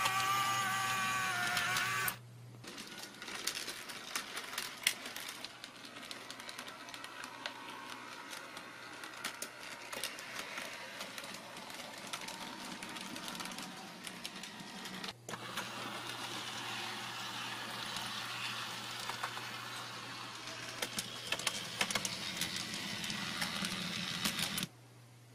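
HO-scale model trams running on their track: small electric motors whirring, with rapid fine clicking from the wheels on the rails. A higher whine in the first two seconds cuts off suddenly.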